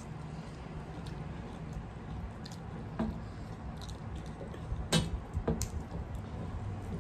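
Hands squishing and mixing rice and curry on metal plates during an eating show, with chewing and a few sharp clicks and smacks, the loudest about five seconds in.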